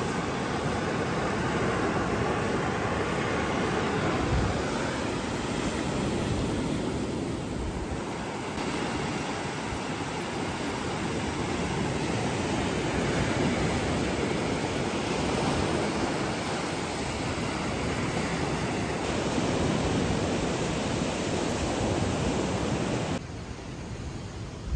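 Steady rushing noise with no clear tone or rhythm, shifting abruptly in character a few times.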